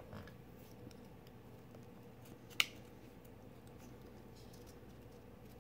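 Faint small clicks and taps of a Benchmade 710 knife's handle scales and liners being fitted together by hand, with one sharp click about two and a half seconds in.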